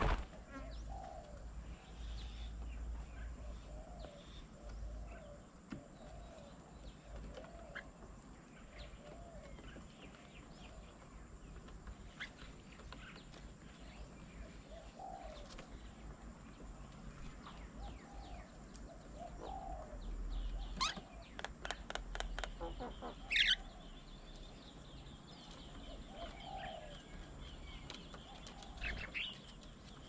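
Birds at a garden bird table: a dove cooing low and over and over, every couple of seconds, with scattered higher chirps. About two-thirds of the way through comes a quick run of sharp ticks, and a steady high tone starts up.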